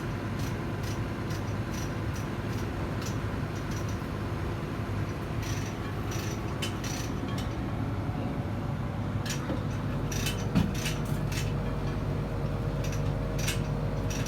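Intermittent sharp metallic clicks and knocks from work on the gearbox, over a steady low machinery hum. About ten seconds in, a second steady hum starts.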